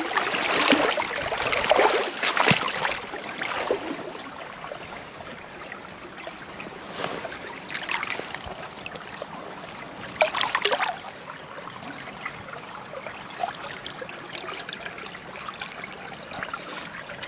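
Stream water splashing and sloshing around a landing net lowered into a small stream with a brown trout in it. The splashing is busiest over the first few seconds, with another short burst about ten seconds in, over the steady trickle of the stream.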